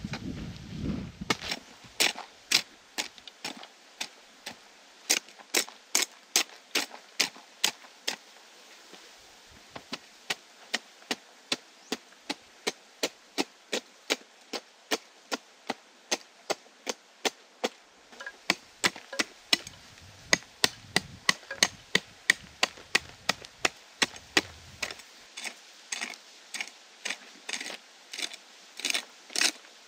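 Short-handled hoe chopping into hard clay soil: a steady run of sharp strikes, about two a second, with a brief pause partway through.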